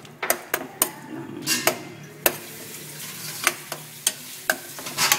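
A metal spoon stirring a chunky pork-and-vegetable stew in a stainless steel pot, knocking and scraping against the pot in about a dozen irregular clinks, over the steady low sound of the stew simmering.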